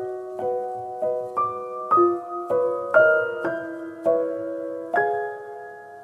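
Background piano music: a slow melody of single notes and chords, about two a second, each fading after it is struck, ending on a chord near the end that is held and dies away.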